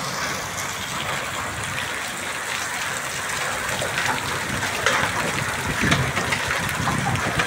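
Hail falling hard: a dense hiss with many sharp ticks of stones striking, growing thicker about four seconds in.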